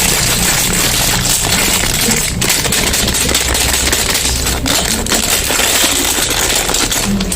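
Soap packaging being unwrapped by hand: a dense, continuous crinkling and crackling of wrappers.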